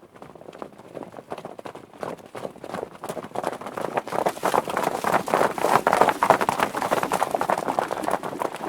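Several horses galloping, a dense rapid clatter of hoofbeats that grows louder, is loudest about six seconds in, then eases slightly.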